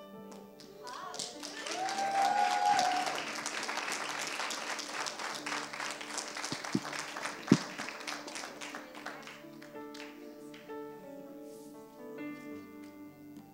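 A congregation clapping over soft keyboard chords. The applause swells about two seconds in and dies away by about ten seconds, leaving the keyboard playing on its own.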